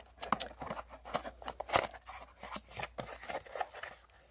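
Product packaging being handled and pulled open: a run of irregular small clicks, scrapes and rustles, with one sharper click just under two seconds in.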